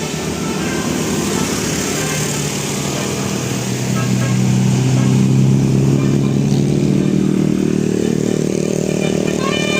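A motor vehicle's engine running and drawing closer, growing louder for the first half and then holding steady. A horn starts sounding just at the end.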